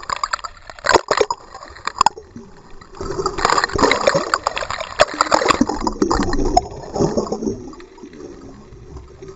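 Churning, bubbling water heard through a submerged camera housing, with a few sharp clicks in the first couple of seconds, then a louder rush of water that gradually dies away.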